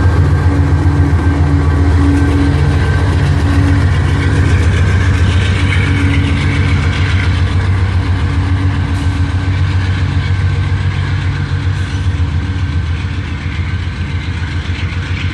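Diesel locomotive engine running under load on a passing coal train, a steady low hum with a rapid pulsing beat, along with the rumble of the train rolling by. The sound fades slowly over the last few seconds.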